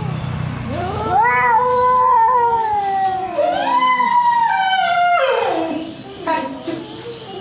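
Cats caterwauling in a fight: long, drawn-out wavering yowls that rise and fall in pitch, two long calls in the middle, the second sliding downward near the end.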